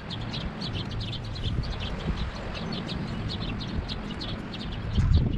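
Small bird chirping rapidly and repeatedly, several short high chirps a second, over a steady low hum. A louder low clunk comes near the end.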